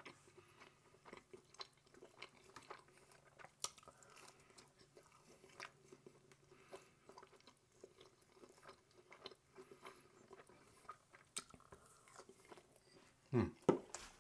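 A person chewing a mouthful of cheese quesadilla dipped in marinara sauce: soft, quiet mouth sounds with many small clicks, close to the microphone. A brief louder vocal sound comes near the end.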